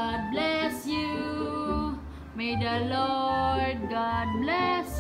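A woman singing a birthday song unaccompanied, in long held notes that slide between pitches.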